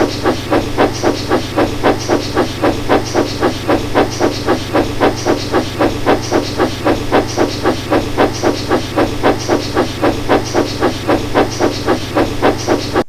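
Steam train chuffing at an even pace, about four chuffs a second with a hiss to each, over a steady low hum.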